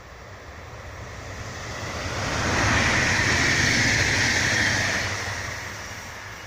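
Electric multiple-unit passenger train passing at speed: wheels rolling on the rails grow louder as it approaches, are loudest for about two seconds in the middle as it goes by, then fade as it runs away.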